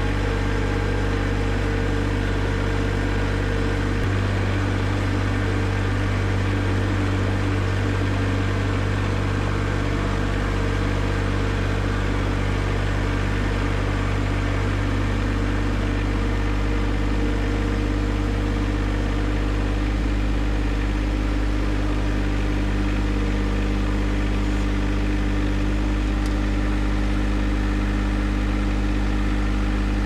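John Deere 1025R compact tractor's three-cylinder diesel engine running steadily as the tractor drives along, its note changing slightly about four seconds in.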